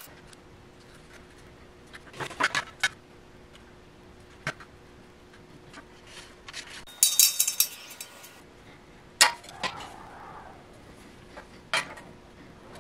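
Scattered metal clinks and knocks as a box level and bar clamps are set against a steel stove body on a steel welding table, with a cluster of clatter past the middle and the loudest single knock a little after that.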